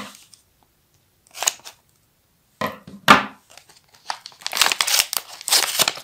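Paper packet crinkling and tearing in short bursts as it is cut and pulled open, with a denser run of crackling in the last two seconds.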